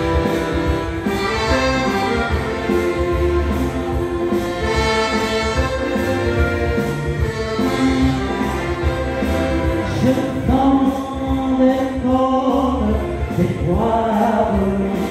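Dance music with a steady beat and a group of voices singing, played loud for the dancers.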